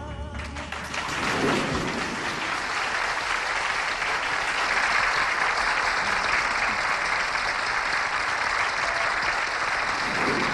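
Live concert audience applauding as a song ends, the clapping building about a second in and then holding steady.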